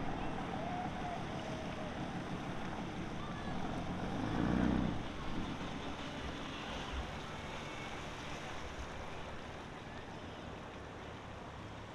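Sea-Doo personal watercraft engine idling as it moves slowly off from the dock, with water and wind noise. The engine is briefly louder about four to five seconds in.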